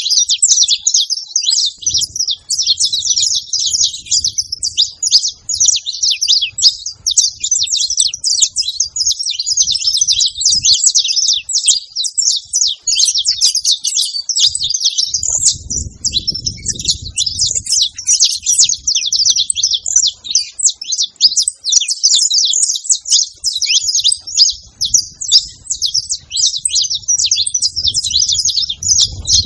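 Saffron finches singing: a dense, unbroken chorus of quick, high-pitched chirps and warbled trills from several birds at once.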